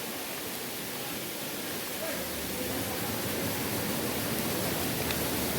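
Steady rushing of water, an even hiss that grows slightly louder toward the end.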